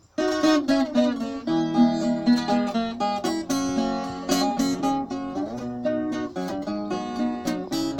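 Viola caipira playing an instrumental introduction: picked melody notes over ringing chords, starting suddenly.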